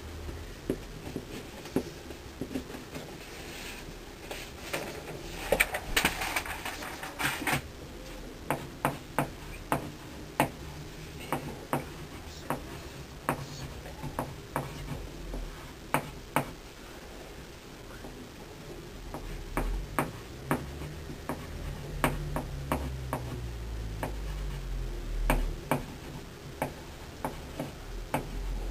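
Irregular sharp taps and clicks, many of them scattered through, with a short rustling burst about six seconds in.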